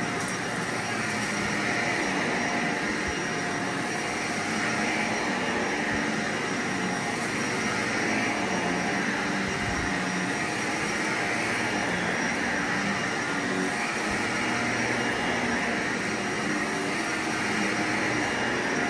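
Vacuum cleaner running steadily, a continuous rush of air with a faint steady motor hum underneath.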